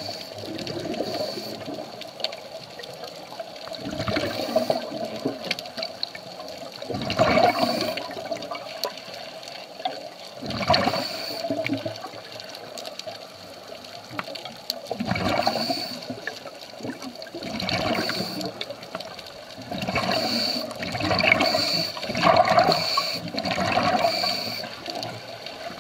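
Scuba diving regulator underwater: rushes of exhaled bubbles every few seconds over a steady hiss, as a diver breathes.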